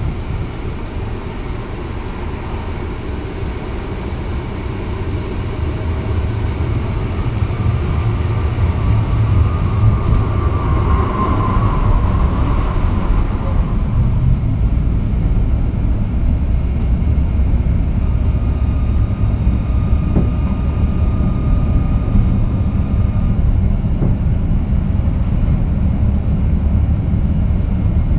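Moderus Beta MF15 AC tram running along the rails: a steady low rumble that grows louder over the first several seconds as it gathers speed, then holds. A thin whine rises briefly about ten seconds in.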